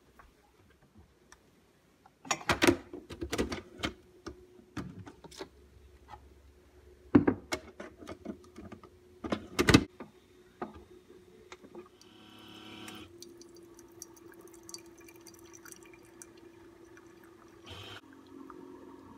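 Several sharp clicks and knocks, then a Keurig single-cup coffee brewer running: a steady hum with a short hiss as it starts, with coffee running and dripping into a mug.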